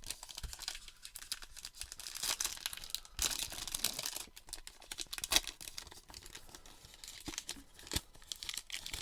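The plastic wrapper of a baseball card pack being torn open and crinkled: irregular crackling with scattered sharp snaps, the loudest a little past the middle.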